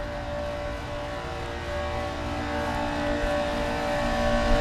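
Lennox central air conditioner condensing unit running with its Tecumseh reciprocating compressor, a steady loud hum with many tones over a low rumble that grows louder near the end. The owner of the recording hears it as awful and blames the Tecumseh compressor.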